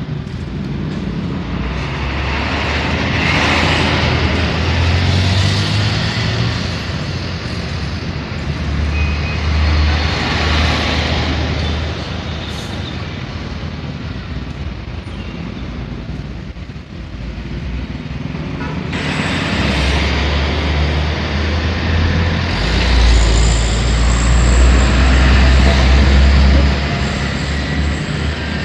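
Road traffic with heavy trucks and motorcycles driving by. Their engines rumble in several passing waves, with a short lull about two-thirds of the way through, and are loudest a few seconds before the end.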